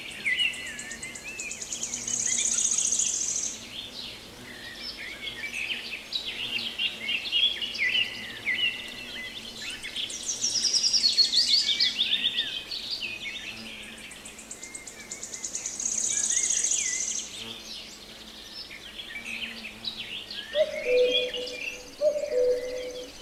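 Songbirds singing: repeated phrases of quick, high trills and warbled chirps. Near the end a low two-note call, the second note lower, sounds three times.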